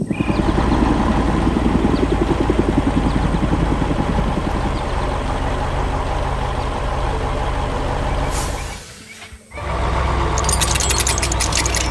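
Heavy truck diesel engine sound effect running steadily. It cuts off for about half a second near nine seconds in, then comes back with a fast, even hissing added near the end.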